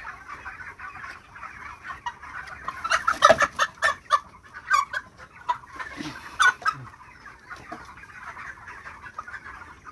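A house full of 42-day-old broiler chickens clucking and chattering continuously. Louder, closer clucks come in bursts about three seconds in and again around six seconds.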